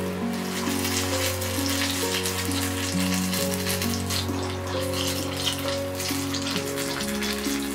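Battered eggplant and vegetable pieces deep-frying in hot oil, a steady dense crackling sizzle, over background music.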